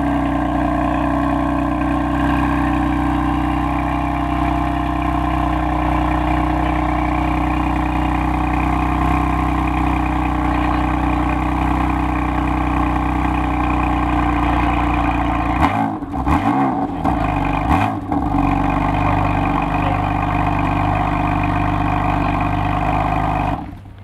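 BMW M4 GTS's twin-turbo inline-six idling steadily at the exhaust. About two-thirds of the way through it is revved a few times in quick succession, the pitch sweeping up and down, then it settles back to idle.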